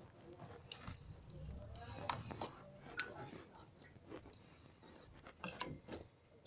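Raw chicken pieces dropped one after another into a bowl of spiced yogurt marinade: faint wet squelches and soft plops, with a few small clicks scattered through.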